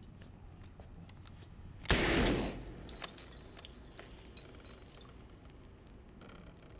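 A single gunshot about two seconds in, with a short fading tail, followed by a few faint clicks.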